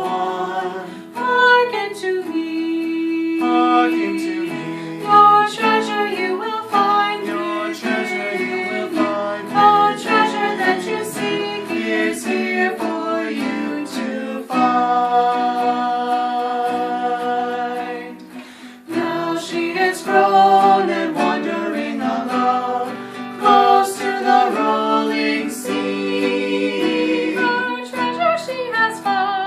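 A song with plucked acoustic guitar and a singing voice, with a brief lull about two-thirds of the way through.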